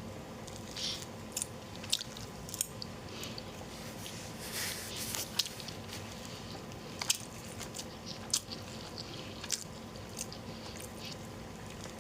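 Close-miked eating: chewing and biting food, with scattered small clicks and mouth smacks. A faint steady hum sits underneath.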